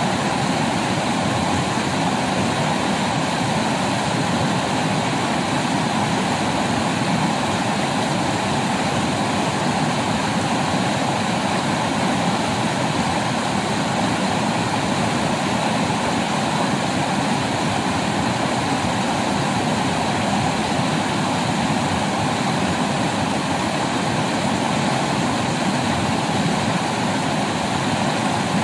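River water rushing steadily over rocks and small rapids.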